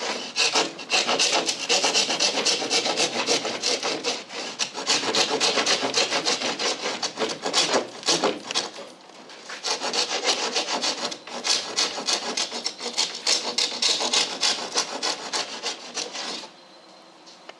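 Wood being worked by hand with rapid back-and-forth rubbing strokes, like sanding or rasping a board edge. The strokes keep up steadily and stop about sixteen seconds in.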